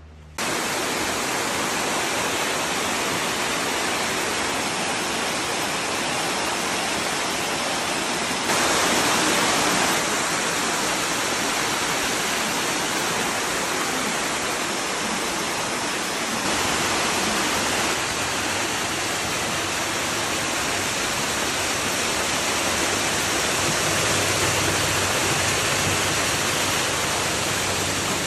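Small waterfall cascading over boulders: a steady, loud rush of water that jumps abruptly up or down in level a few times.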